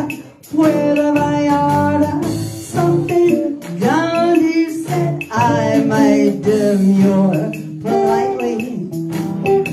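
Live song: an acoustic guitar played under singing, with long held sung notes that waver in pitch.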